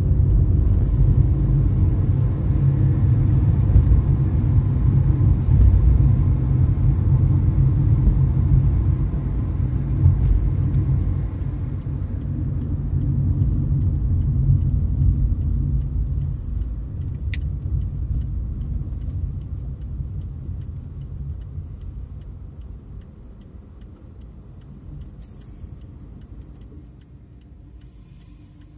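Low road and engine rumble inside a moving car, fading away as the car slows to a stop. From about halfway a turn-signal indicator ticks steadily, with one sharp click a little later.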